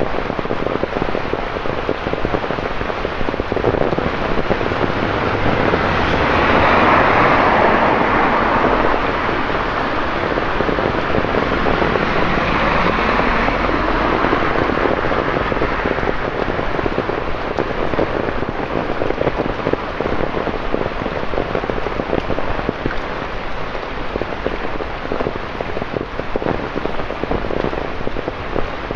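Heavy rain falling on wet pavement and road, a steady hiss of spattering drops. The hiss swells louder twice, about seven and about thirteen seconds in.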